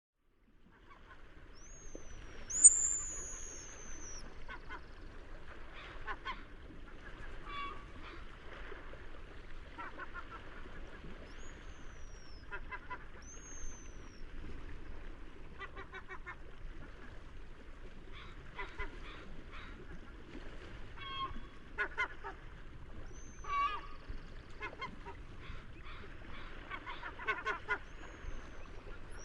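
Seagulls calling, with bursts of short repeated cries every second or two. Several high, thin whistling notes rise then fall in pitch, the loudest about three seconds in.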